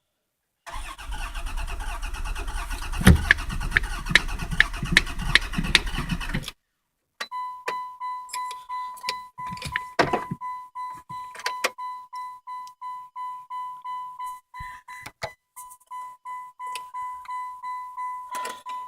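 The starter of a 1994 Voyager minivan cranks the engine with a regular pulsing for about six seconds without it catching, then stops abruptly. After a short pause, the van's dashboard warning chime sounds over and over at an even rate.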